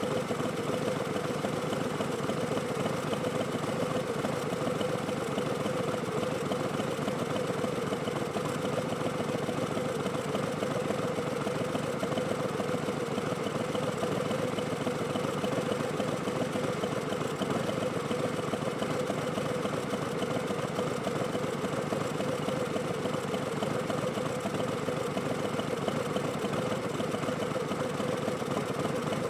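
Harley-Davidson Street Bob's Milwaukee-Eight V-twin running through Vance & Hines Twin Slash slip-on exhausts, a steady note with no revving or change in pitch.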